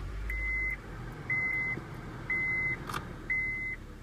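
Honda Civic's warning chime beeping once a second, a steady high tone about half a second long each time, over a low steady engine rumble. A single click sounds about three seconds in.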